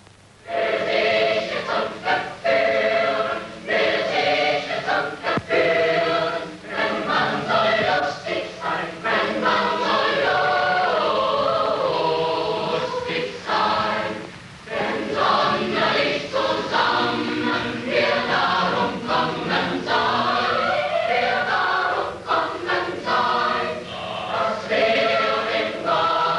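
Boys' choir singing a song together, starting about half a second in, with a short break about halfway through.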